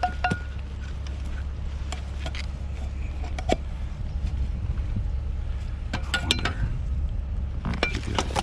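Scattered clinks and knocks of hard items being moved while rummaging through a pile of discarded things, a few ringing briefly, over a steady low rumble.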